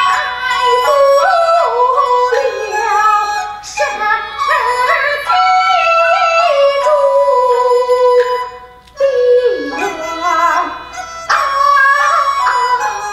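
Kunqu opera singing: a high voice in long, sliding, ornamented phrases, accompanied by a bamboo flute (qudi). The singing dips briefly about two-thirds of the way through before the next phrase.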